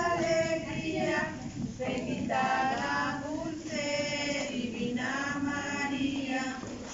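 A group of adults and children singing a Christmas lullaby (arrullo) to the Christ child together, in long held notes.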